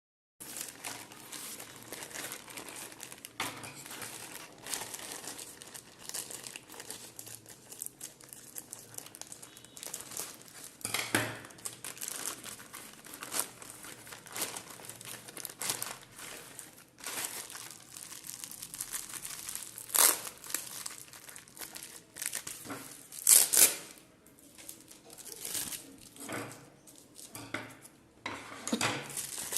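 Packaging crinkling and rustling as a parcel is handled and unwrapped, with a few sharper, louder crackles or tears.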